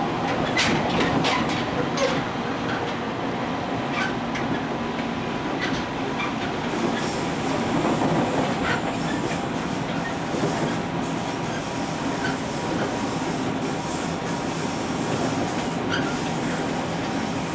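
JR Kyushu 813 series 200 subseries electric train running along the line, heard from behind the cab: a steady rumble of running noise with sharp wheel clicks over rail joints at uneven intervals. A faint high-pitched squeal comes twice in the second half.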